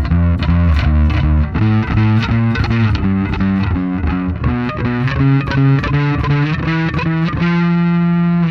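Warwick Vampyre SN-5 five-string electric bass on its neck pickup, played through a Neural DSP Quad Cortex amp-modelling preset: a quick run of plucked notes, ending on one note held and let ring near the end.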